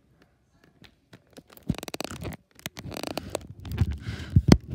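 Handling noise close to the microphone as the recording phone is moved and set down: three stretches of rubbing and scraping with sharp clicks, ending in a few heavier knocks, the loudest near the end.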